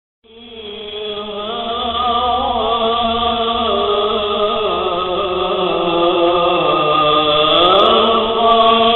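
Devotional vocal chanting used as background music, fading in over the first two seconds, with long held notes that glide slowly over a low steady drone.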